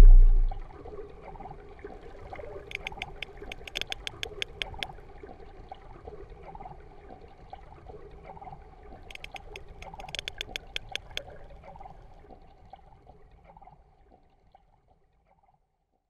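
Underwater recording of a sperm whale clicking: two runs of sharp, evenly spaced clicks, about five a second and each run about two seconds long, several seconds apart, over a faint watery background. It fades out near the end, after a brief tail of music at the start.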